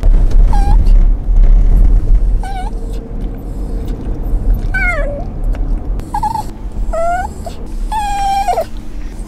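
An Italian greyhound whining and crying in a run of about six short, high whines, some falling in pitch and the longest near the end, over the low rumble of the car it is riding in.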